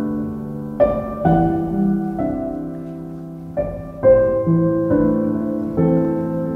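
Background piano music: slow chords, each struck and left to ring and fade.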